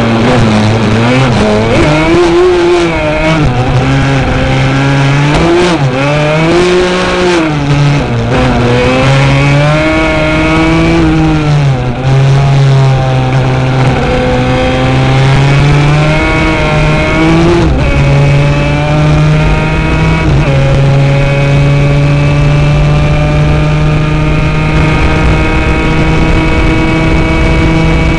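Racing quad engine at full race pace, the revs climbing and dropping repeatedly through gear changes and corners, then held steady and slowly rising for the last ten seconds or so.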